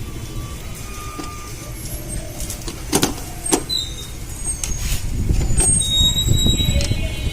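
Road traffic rumbling, growing louder about five seconds in as a heavy vehicle passes, with faint high squeals. Two sharp clicks come about three seconds in, from the TV's parts being handled.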